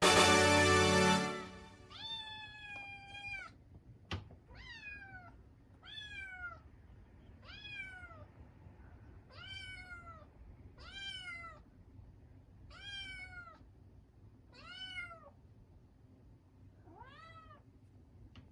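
A cat meowing over and over: about ten high, drawn-out meows, each about a second long and arching in pitch, coming every second and a half to two seconds. A loud burst of sound lasting about a second comes before them, and there is one sharp click early in the series.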